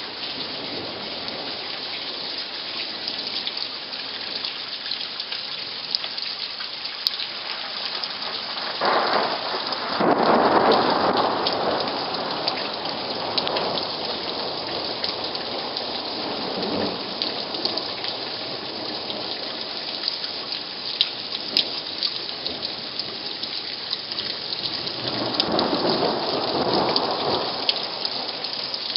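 Thunderstorm: steady heavy rain, with thunder rumbling twice, the louder roll about nine seconds in lasting a few seconds, and another near the end.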